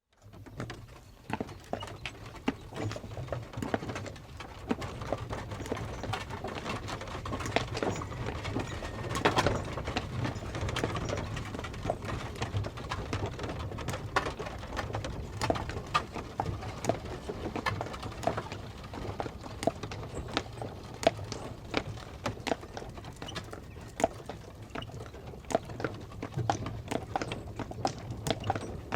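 Horse-drawn carriage on the move: the horse's hooves clip-clop in a dense, uneven run of knocks over a steady low rumble.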